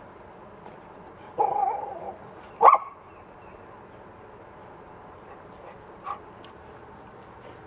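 Shar-Pei giving a short vocal sound, then a single sharp bark about a second later.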